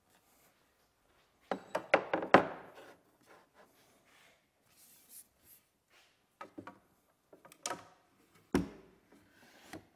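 Wooden tool handles and a tool head knocking and rubbing against the pine boards of a wooden box as hand tools are set into it. A quick run of sharp knocks comes about a second and a half in, then softer rubbing and a few scattered knocks, with one more loud knock near the end.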